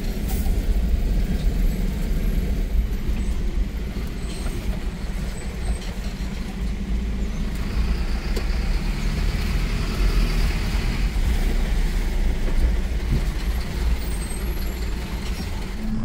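Motor vehicle driving: a steady low engine and road rumble with tyre noise.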